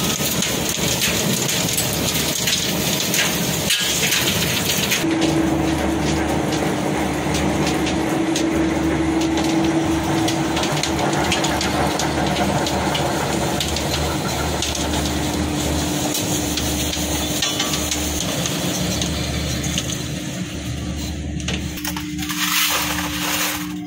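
Wet mix macadam plant machinery running: conveyor belts and the pugmill mixer's electric drive give a loud, steady rushing noise over a low hum. A steady motor tone comes in about five seconds in.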